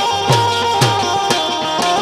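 Instrumental interlude of Indian devotional folk music: a held melody line that steps between notes over a hand drum, its low bass strokes bending in pitch about twice a second.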